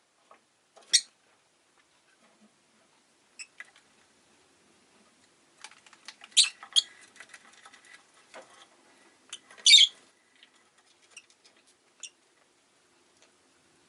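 Rosy-faced lovebird giving short, sharp, high-pitched chirps one at a time, about half a dozen over the stretch, the loudest about a second in and near ten seconds in, with faint ticks and rustling between them.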